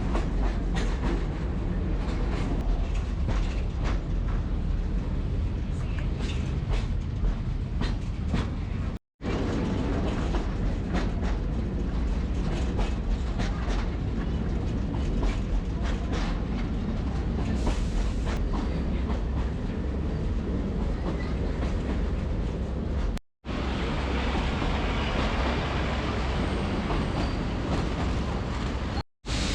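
Narrow-gauge heritage train running along the track, a steady rumble of carriage and wheels with frequent clicks and clatter over the rail joints. The sound cuts out abruptly for a moment about 9 and 23 seconds in.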